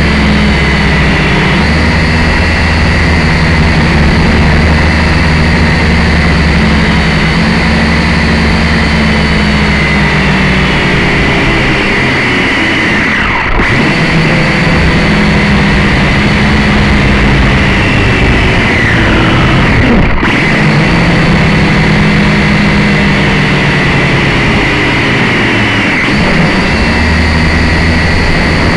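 Small quadcopter's electric motors and propellers buzzing loudly right at the onboard camera's microphone in flight, a steady high whine over a lower hum. The pitch slides as the motors change speed, a little before halfway and again about two-thirds in.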